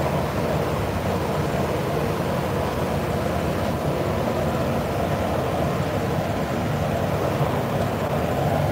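Steady drone of a spray booth's ventilation fan running, an even rushing noise with no change in level.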